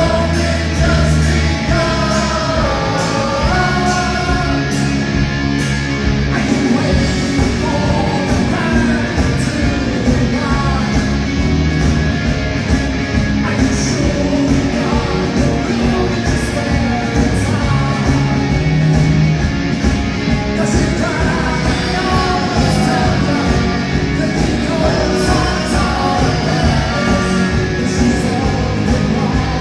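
Rock band playing live with electric guitars and singing, heard from within the crowd in a large hall.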